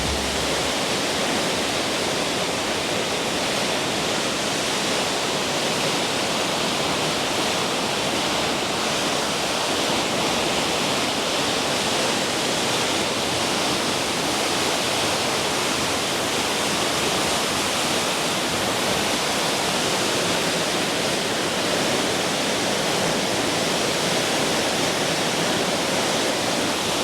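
River waterfall: water falling and splashing in a steady, unbroken rush.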